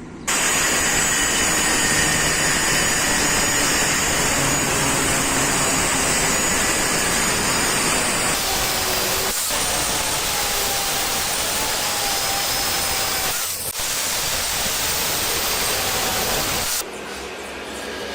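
Electric arc (stick) welding: the arc hissing and crackling steadily, striking just after the start and breaking off suddenly near the end, with two brief dips along the way.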